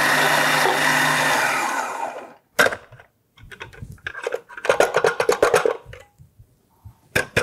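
Magimix Cook Expert food processor running, blitzing sugar with lemon zest, then winding down and stopping about two seconds in. After that come scattered plastic clicks and knocks as the processor bowl is lifted off the base and the blade is pulled out.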